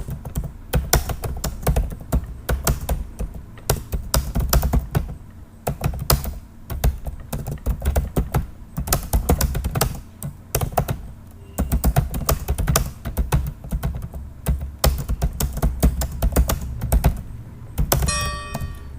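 Fast typing on a computer keyboard, keys clicking in quick runs broken by short pauses.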